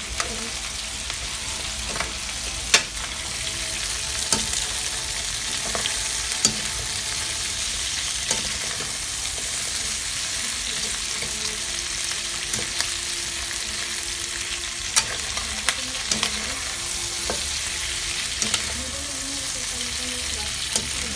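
Pork and string beans sizzling as they stir-fry in a steel wok, with a steady hiss, while a metal ladle stirs them and now and then clanks sharply against the pan.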